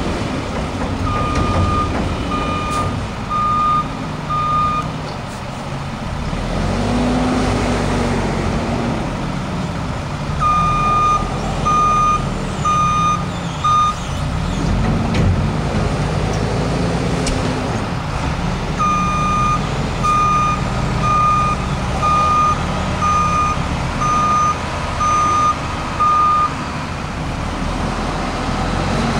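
Snow-plough vehicle's engine running and revving up and down as it manoeuvres, with its reversing alarm beeping about once a second in three runs: four beeps near the start, four about a third of the way in, and a longer run of eight in the second half.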